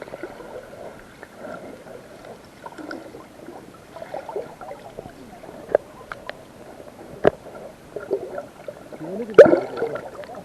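Muffled water gurgling and sloshing around a waterproof action camera, with a few sharp knocks and a louder surge of water about nine seconds in.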